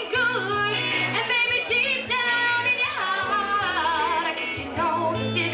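A woman singing with vibrato, held notes and melismatic runs, over a backing track with a steady bass line.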